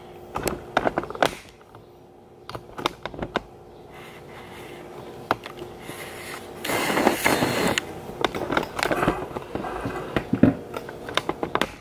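Kitchen handling clatter: scattered knocks and clicks as a plastic bowl and other things are moved about and set down on a counter, with a brief rush of noise about seven seconds in, over a faint steady hum.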